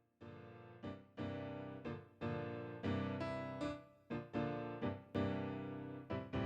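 Background piano music: a slow run of chords, each struck and left to fade before the next.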